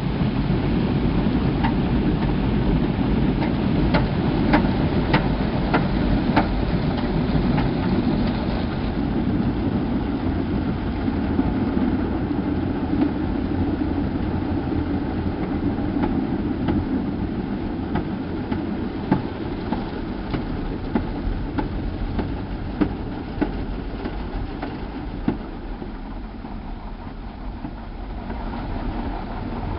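Automatic car wash machine running, heard from inside the car: a steady low rumble with scattered sharp ticks of water drops, easing a little near the end.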